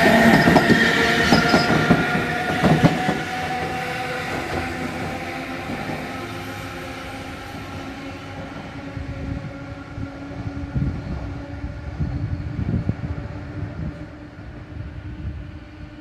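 Randen tram car Mobo 27 passing close by on street-level track, its wheels clattering and motor sounding loud at first. It fades steadily over the first half as the tram runs away down the line, leaving a low rumble.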